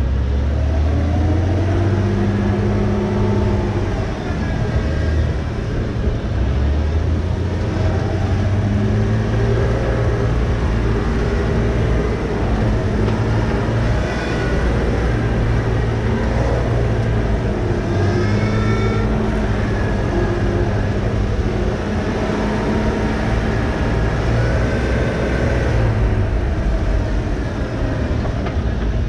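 Off-road vehicle's engine running at low speed as it crawls over slickrock, its note rising and falling with the throttle over a steady low rumble.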